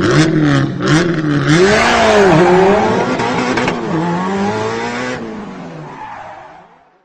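A vehicle engine revving up and down repeatedly, with a burst of tyre screech in the middle, then fading out smoothly.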